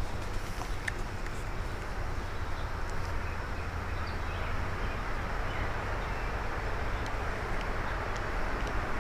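Steady outdoor noise: wind buffeting the microphone with a low rumble, and an even hiss over it.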